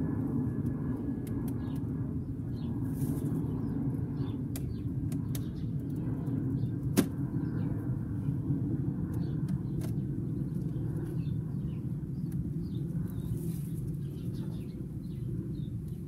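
Steady low rumble that eases slightly toward the end. Over it come light clicks, and one sharper knock about seven seconds in, as wooden hive boxes and frames are handled.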